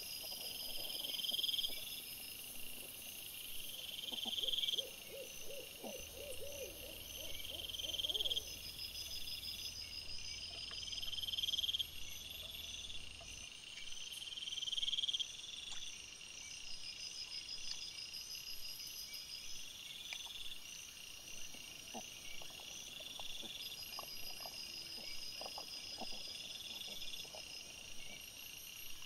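Night insects chirping in a steady chorus that swells about every two seconds. A brief wavering call comes about six seconds in, and faint scattered short calls and clicks follow later.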